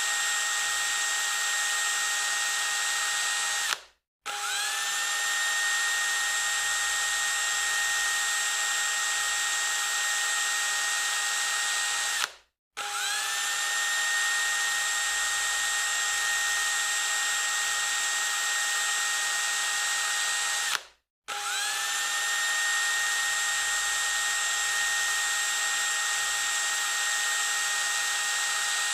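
Electric drill motor running with a steady high whine. It cuts off abruptly three times, about every eight seconds, and each time starts again with its pitch climbing quickly back up to full speed.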